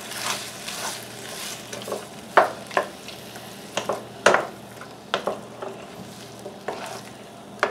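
Mixed vegetables and stewed tomatoes sizzling in a frying pan as they are stirred with a wooden spoon, with a few sharp knocks of the spoon against the pan.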